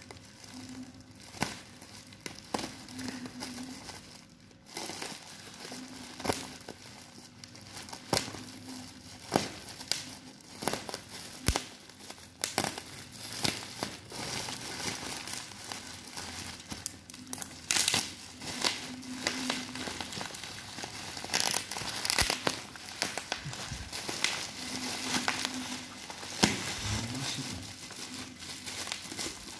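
A parcel's black plastic mailer wrap and clear tape crinkling and crackling as hands pull it open, with many irregular sharp crackles.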